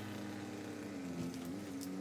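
Heavy equipment engine running steadily, its pitch dipping briefly twice as it takes load.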